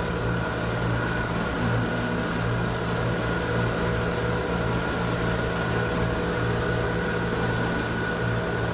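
Motorboat engine running steadily at cruising speed, a constant drone over a steady rush of water and wind.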